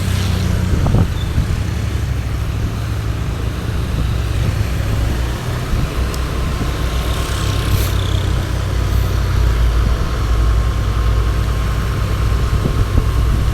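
Vehicle engine running while driving on the road: a steady low drone with road noise.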